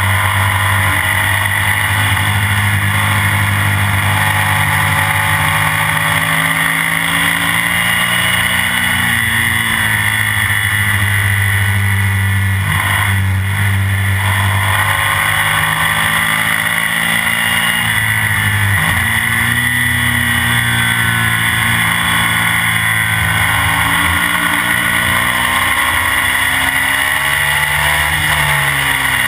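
Classic BMW racing sidecar outfit's engine running hard at speed, heard from the machine itself, with wind and road rush. The engine note steps and bends at gear changes a little after 12 s, near 19 s and near the end.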